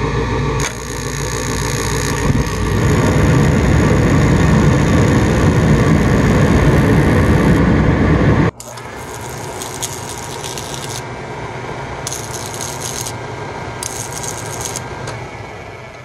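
Gas furnace burners lighting by direct spark ignition and running with a loud, even rush of flame and blower, which cuts off abruptly about eight seconds in. Then an oil burner runs with a steady hum while its ignition transformer's 10,000-volt spark is drawn across a screwdriver in three hissing bursts of about a second each.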